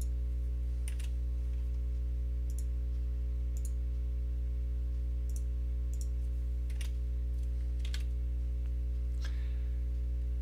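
Computer mouse clicks and keystrokes, about nine separate clicks spaced roughly a second apart, over a steady electrical hum.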